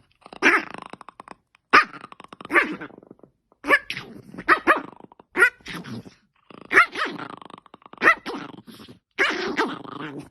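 A dog barking and growling in a run of short bursts, roughly one a second.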